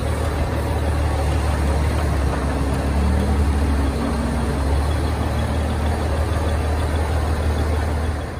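Truck engine idling steadily, a low even hum with a broad hiss above it.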